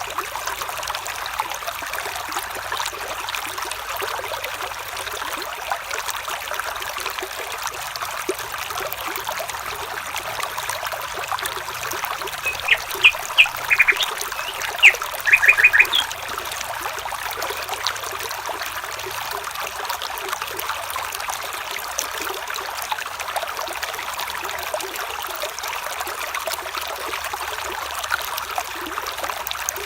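Small stream trickling and babbling steadily over stones. About halfway through, an animal gives a quick series of short, sharp calls for a few seconds.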